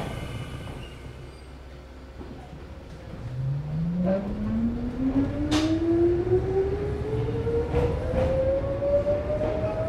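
Mizuma Railway 1000 series electric train pulling away: about three seconds in, the traction motor whine starts low and rises steadily in pitch as the train gathers speed, with a few short sharp clicks along the way.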